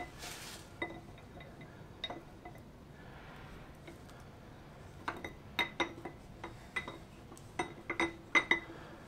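Steel camshaft being threaded through a Mini A-series engine block, its lobes and journals clinking against the block: sharp metallic clinks, each with a short ring. A few come in the first couple of seconds, then a busier run of clinks from about five seconds in.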